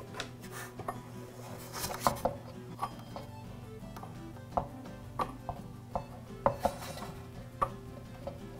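Scattered light clicks and knocks of hands working a V-belt onto the cutter-head pulley of a gas cut-off saw and seating the cutter arm over its studs, with small metal parts tapping. Soft background music under it.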